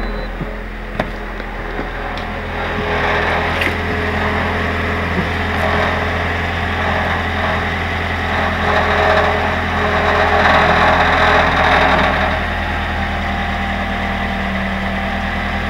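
2011 Toyota Corolla idling with a helicopter-like buzzing rattle from under the car, strongest from a few seconds in until near the end, then easing back to the steady idle hum. The rattle comes from the loosened aluminium heat shield at the muffler, which has come to rest on the muffler pipe and vibrates against it.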